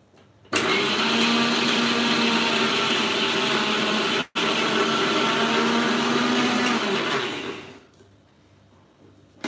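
Bajaj mixer grinder running with its steel jar, grinding mango ginger chutney. It starts abruptly, cuts out for an instant about four seconds in, runs again, then winds down near the end.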